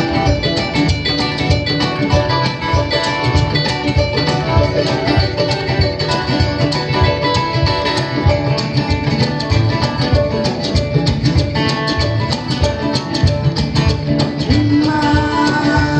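Live acoustic instrumental music: plucked strings, guitar and kamale ngoni, playing a busy, steady rhythm in a blend of bluegrass and West African styles.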